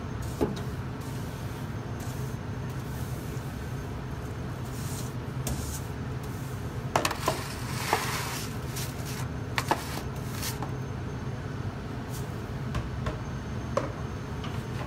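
Bristle brush sweeping the stone floor of a deck oven: a few scattered scrapes and knocks, most of them about seven to eight seconds in, over a steady low hum.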